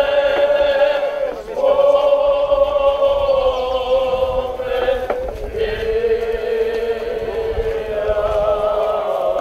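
Voices chanting the Orthodox funeral service in long held notes that change pitch slowly, with short breaks between phrases.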